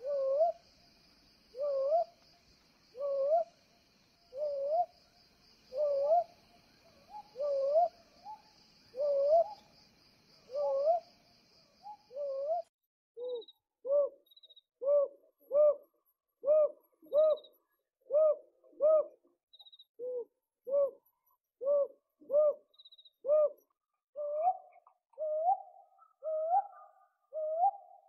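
An owl hooting over and over: short hoots, each with a slight upward lilt, about one every second and a half, over a steady high buzz. About halfway through the recording changes: the hoots come faster and shorter, about one every 0.7 s, and the buzz is gone.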